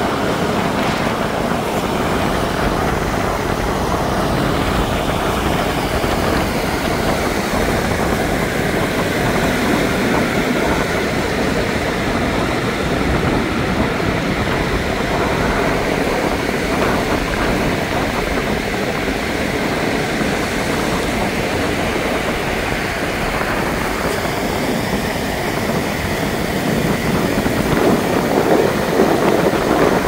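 Steady rushing noise of shallow waves washing over sand, mixed with wind on the microphone, growing a little louder near the end.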